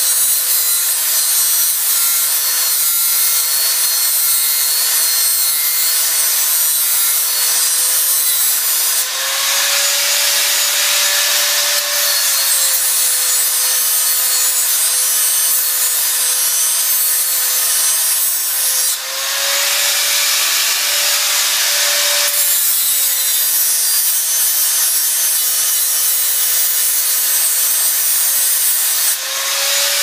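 Angle grinder running under load, its disc grinding down the steel tip of a Phillips drill bit clamped in a vise: a steady motor whine over a loud hiss of grinding. The motor's pitch lifts briefly three times as the disc eases off the metal.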